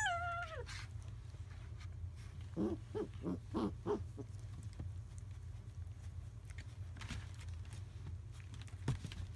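German Shepherd puppies at play: a high yelp falling in pitch right at the start, then a quick run of about five short, low vocal sounds around three to four seconds in, with light rustling and a few small knocks. A steady low hum runs underneath.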